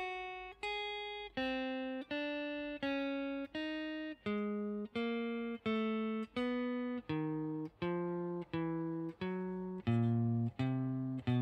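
Electric guitar playing single notes picked one at a time, evenly spaced at about one and a half a second. The notes step in pairs, fretting with the first and third fingers of the left hand, and move steadily lower in pitch toward the low strings. This is a beginner's finger-combination exercise.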